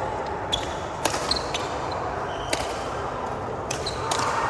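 Badminton rally: several sharp racket-on-shuttlecock hits spaced irregularly, with a few brief high squeaks from shoes on the court floor, over steady hall noise.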